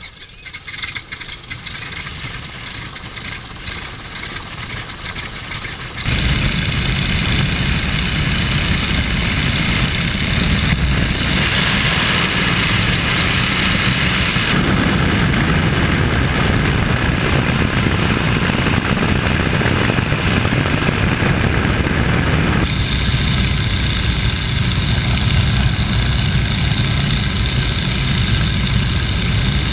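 Stearman biplane's radial engine heard from the open cockpit. It idles with an uneven, pulsing beat for the first six seconds, then runs loud and steady at high power through the takeoff run and in flight.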